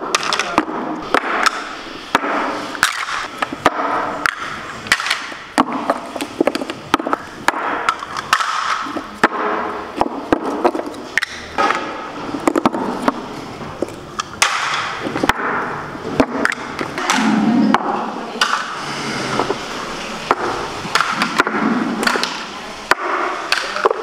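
Hard half-coconut-shell moulds clattering and being knocked as set palm jaggery is turned out of them: a long, irregular run of sharp knocks and clacks of shell on shell.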